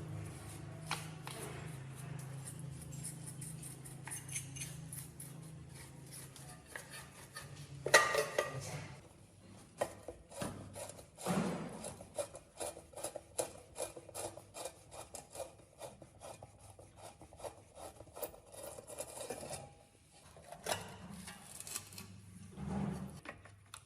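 Metal tools and parts clinking, tapping and scraping during hands-on work on an electric motor, with one heavier knock about eight seconds in. A low steady hum is there at first and fades out about eight seconds in.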